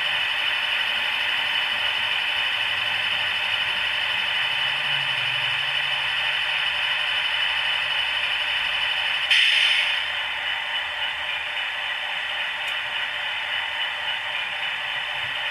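Model Class 60 diesel locomotive's DCC sound decoder (Howes sound) playing the stationary engine idling through the model's small speaker, a steady thin hum. About nine seconds in comes a short burst of hiss, and the sound drops slightly after it.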